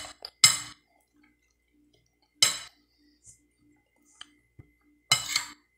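Metal spoon clinking and scraping against a glass plate: a few short, sharp clinks spaced out, with the loudest near the start, again about two and a half seconds in and near the end.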